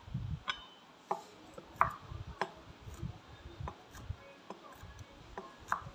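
Cleaver chopping garlic cloves on a wooden chopping board: irregular knocks of the blade on the wood, a little more than one a second.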